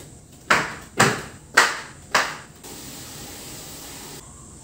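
Four sharp knocks about half a second apart, each ringing briefly, then a steady hiss for about a second and a half that cuts off suddenly.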